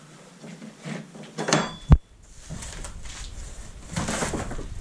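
A single sharp knock about two seconds in, after a short scrape, then low rustling and scuffing noises.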